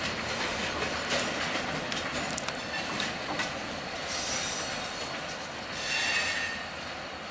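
Short freight train's steel wheels rolling on the rails as it moves away, with clicks from the wheels over the track in the first few seconds. Near six seconds in comes a high wheel squeal.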